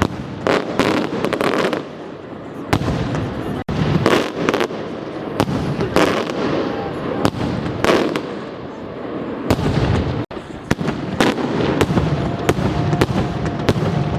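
Fireworks display: an irregular barrage of sharp bangs and crackles, about two a second, over continuous rumbling.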